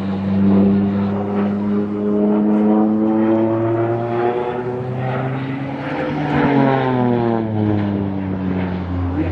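Single-engine propeller aerobatic aircraft flying a display overhead. The engine and propeller drone climbs in pitch, then drops sharply about six and a half seconds in as it flies past.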